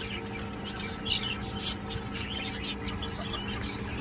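Aviary birds, budgerigars among them, chirping in quick overlapping calls over a steady low hum.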